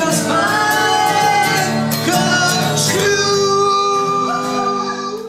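Country-style song with guitar and male vocals, the singer holding the final sung notes before the music ends with a short fade-out.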